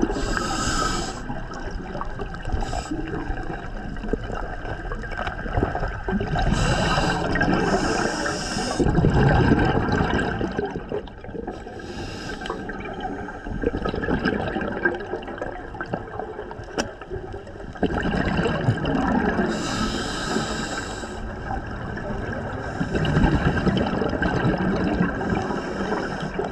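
Scuba regulator exhaust bubbles heard underwater: several gurgling, hissing bursts of bubbles a few seconds apart over a steady low water rumble.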